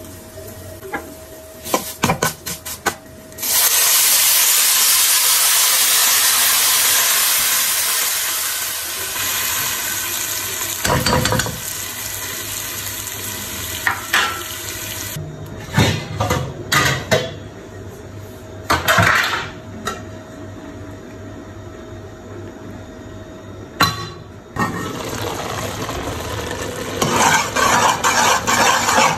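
Water poured into a hot aluminium pan of roasted vermicelli: a loud sizzling hiss that starts suddenly a few seconds in and eases after about five seconds. Scattered clinks and knocks of utensils on the pan follow, with a steel spoon stirring and scraping the pan near the end.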